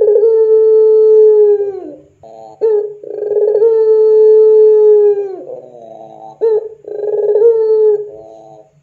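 Puter pelung, a long-cooing domestic ringneck dove, cooing. Two long drawn-out coos of about two seconds each hold one pitch and drop off at the end, with short clipped coos between them and a run of shorter coos near the end.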